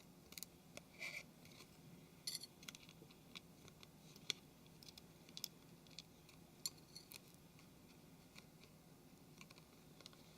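Faint, irregular small clicks and scrapes of hand tools and small plastic phone parts being worked on, with near silence between.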